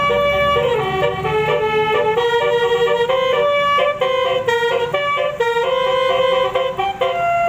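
Basuri telolet horn, a multi-trumpet musical vehicle horn, playing a tune of short and held notes that change pitch every fraction of a second, with a brief gliding note about half a second in.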